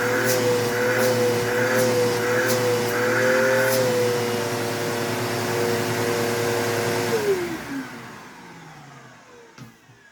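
Bissell Powerforce Bagged 3522-6 upright vacuum cleaner running with a steady motor hum. About seven seconds in it is switched off, and the motor's pitch falls as it spins down. A couple of faint clicks come near the end.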